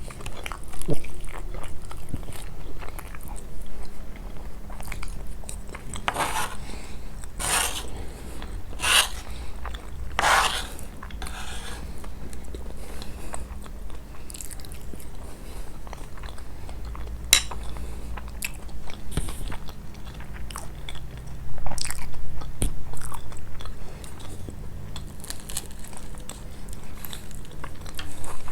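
Close-miked chewing and biting of coarse-shredded Nabulsi kunafa with cheese: crunching and wet mouth clicks, with a few louder crunchy bites about six to eleven seconds in.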